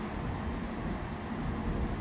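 A train running, a steady low rumble with a hiss over it.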